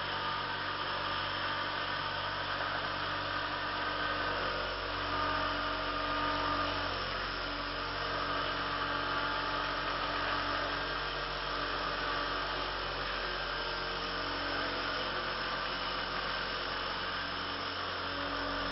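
Exceed RC G2 model helicopter running with its rotor spinning: a steady whir of several tones whose pitch shifts a little now and then.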